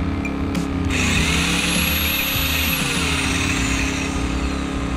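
A compact corded circular saw switched on about a second in, its motor whining up to speed and running free for about two seconds, then released and spinning down, over the steady running of a Pulsar G2319N inverter generator that powers it.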